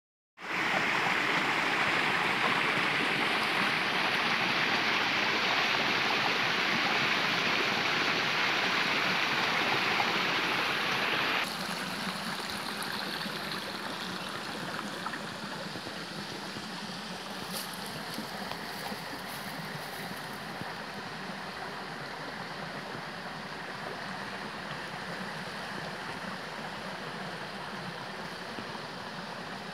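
Shallow creek water running, a steady rushing noise that drops suddenly about a third of the way in and carries on softer.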